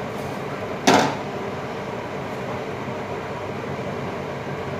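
Steady rushing hum over a pot of boiling cassava on the stove, with one short, sharp sound about a second in as the glass lid comes off the pot.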